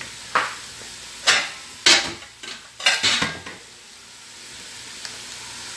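Cookware being handled, with four or five sharp clattering knocks in the first three and a half seconds, over a faint sizzle of chicken browning in the pot.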